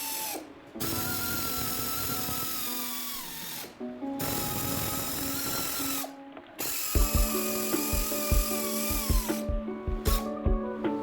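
Power tool running on the alternator mounting bolts in several bursts, each winding down in pitch as it stops.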